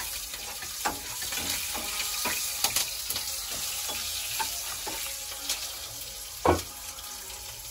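Oil sizzling steadily in pans on a gas stove, with a metal spatula scraping and tapping against the pan now and then. One louder knock comes near the end.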